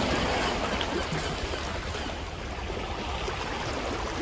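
Small waves breaking and washing up on a shingle beach at the water's edge: a steady rushing wash of surf.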